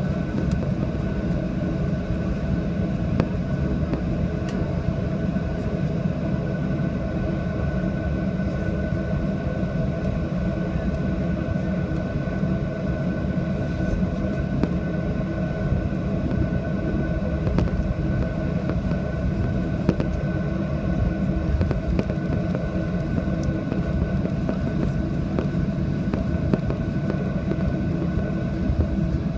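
Jet airliner cabin noise: a steady rumble of engines and airflow with a few faint steady tones, heard from inside the passenger cabin.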